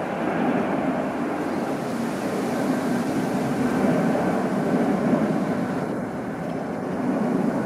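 Jet noise from a British Airways Airbus A380's four Rolls-Royce Trent 900 turbofans at take-off climb power: a steady, deep rushing rumble that eases slightly near the end.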